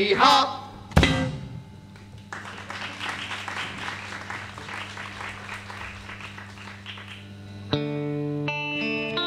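Stage musical number ending: a last sung note, then a sharp final hit about a second in. After a few seconds of softer noise over a low steady tone, guitar chords begin and ring on near the end.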